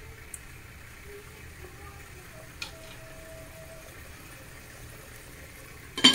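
Chicken in a creamy sauce simmering in a pot, a faint steady bubbling, with a loud clink against the pot about six seconds in.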